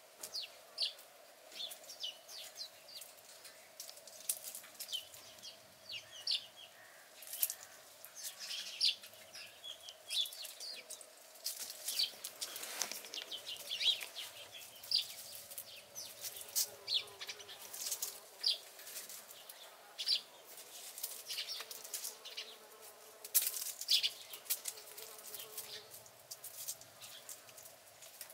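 Small birds chirping in short, scattered calls, mixed with frequent brief rustling clicks. A faint steady hum runs underneath.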